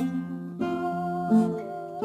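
Solo classical guitar playing a slow song arrangement: plucked notes and chords over a bass line, with new notes struck about halfway and again near three-quarters of the way through.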